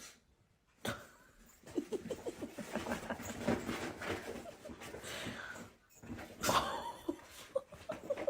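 A dog making a run of short, rapid vocal sounds for several seconds, with a louder one near the end.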